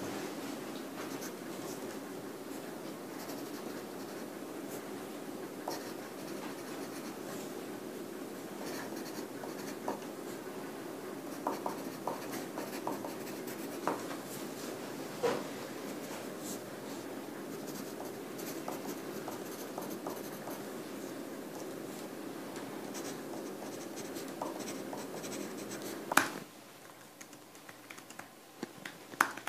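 Steady scratching of handwriting on paper, with a few light taps and clicks around the middle. Near the end comes one sharp click, the loudest sound, and after it only quieter room tone.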